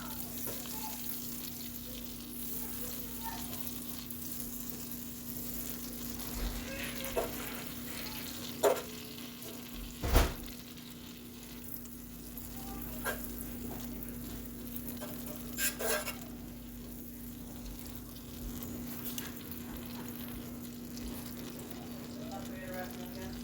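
Food sizzling as it fries in a pan, over a steady low hum, with a few sharp knocks, the loudest about ten seconds in.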